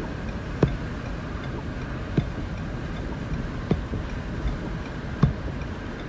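Inside a car cabin: steady road and engine noise, with a soft low knock every second and a half or so, typical of windshield wipers at the end of each sweep.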